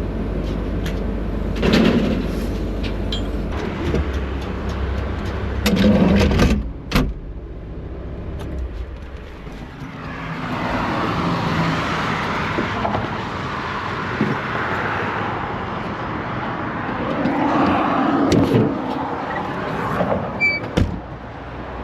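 Heavy machinery running with a low rumble, with a few loud metal clanks. A broad rushing vehicle noise follows.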